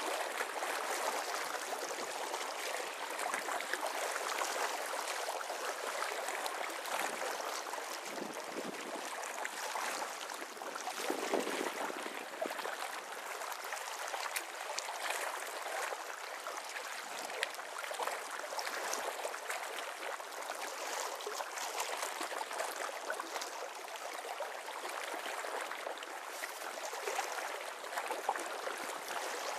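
River water lapping and splashing against a rocky bank in a steady wash, with fine crackling splashes throughout.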